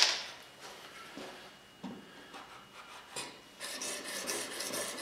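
Plane iron in a wooden sharpening jig's cradle scraping back and forth over the abrasive, a run of short grinding strokes starting about three and a half seconds in: a test pass to see where the marker-coloured bevel is being ground. Before it, a sharp knock at the start and a few light knocks as the jig is handled.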